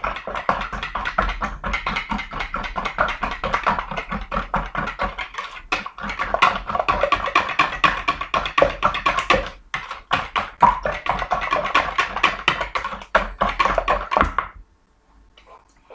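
Wire whisk beating raw eggs in a plastic mixing bowl: a fast, continuous run of clicking and scraping strokes that stops abruptly near the end.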